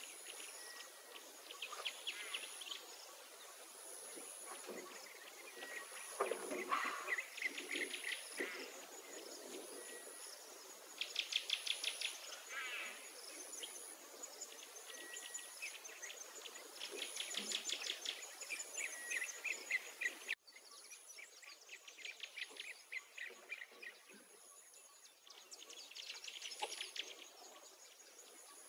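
Insects and birds in farmland: a high, thin insect note pulsing about once a second throughout, with recurring bursts of rapid chirping trills.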